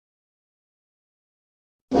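Dead silence, a gap between sound effects. Just before the end, a loud Tyrannosaurus rex roar sound effect cuts in abruptly.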